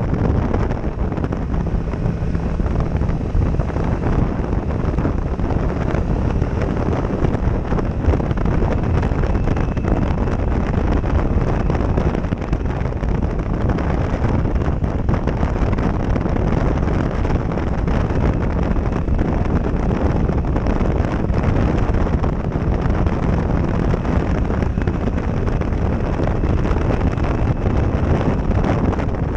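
Steady, loud wind buffeting on a helmet-mounted GoPro Session microphone while riding a motorcycle at road speed. It drowns out nearly everything else.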